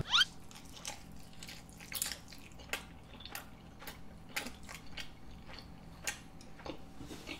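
A person chewing a mouthful of sauced chicken close to the microphone: irregular wet smacks and clicks of the mouth. A short rising squeal comes right at the start.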